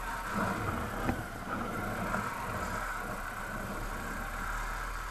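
A motor scooter's engine running steadily as the scooter rolls at low speed, picked up by a helmet-mounted action camera.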